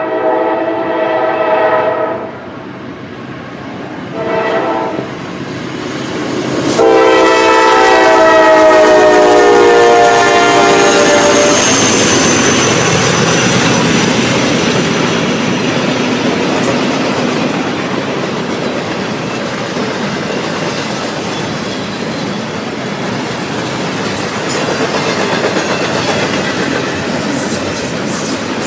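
Norfolk Southern diesel locomotive's horn sounding a chord: a blast ending about two seconds in, a short one, then a long one that drops in pitch as the locomotive goes by. After that the train rolls past with a steady rumble and clickety-clack of wheels on the rail joints.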